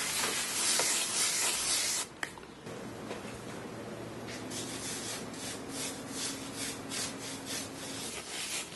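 Rubbing and scrubbing on a metal hydraulic-tile mold by hand: a steady scraping hiss for about two seconds, then quieter repeated strokes, two or three a second.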